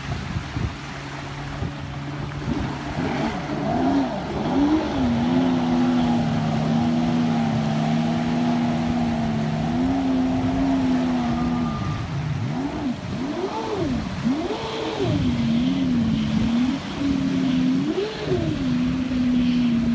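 Jet ski engine running as it pulls away, holding a steady pitch for a few seconds, then revving up and down repeatedly over the second half, with a wash of wind and water noise underneath.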